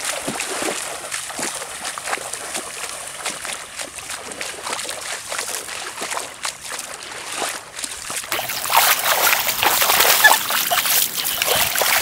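Feet wading through ankle-deep seawater: a run of splashes and sloshes, louder in the last few seconds.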